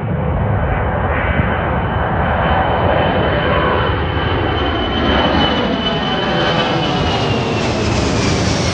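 Large military jet aircraft passing close, its turbofan engines making a loud, steady noise with a high whine that drops in pitch near the end as the plane goes by.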